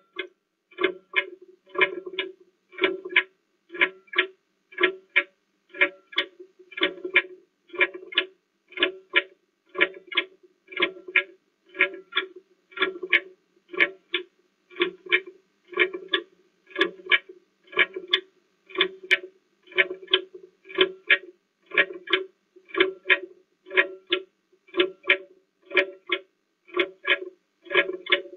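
Countdown timer sound effect for a 30-second answering time: a short pitched double tick repeating steadily about once a second.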